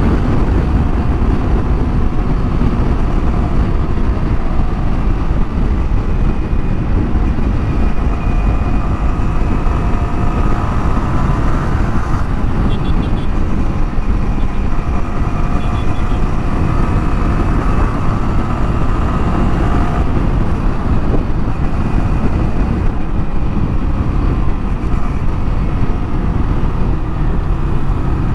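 Heavy wind rush on the rider's microphone over the steady running of a Yamaha R15's single-cylinder engine in sixth gear, the bike slowing gradually from highway speed.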